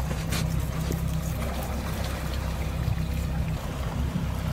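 Steady low drone of idling Suzuki outboard motors, with water sloshing against the boat's hull.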